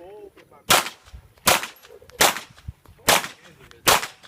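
Pistol fired five times at a steady, deliberate pace, the sharp shots a little under a second apart.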